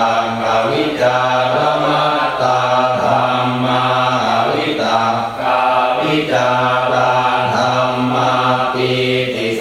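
Buddhist chanting in Pali, recited in unison on a nearly level pitch, with brief breaks for breath every few seconds.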